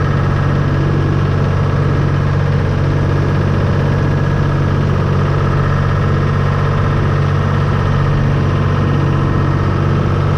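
Water truck's engine running steadily as the 4,000-gallon truck drives along, a constant low drone.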